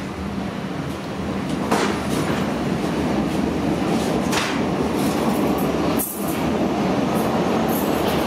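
Berlin U-Bahn type F79 train heard from inside the car while running: a steady rumble of wheels on rail that grows louder over the first few seconds, with a few sharp clacks from the track.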